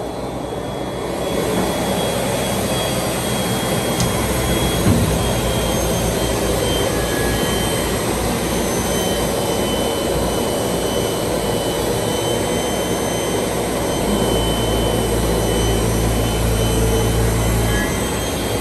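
Brush sanding machine running while it sands two narrow profiles fed side by side: a steady rushing noise from the rotating sanding brushes and machinery that grows louder about a second in. A deeper hum swells near the end and cuts off shortly before the end.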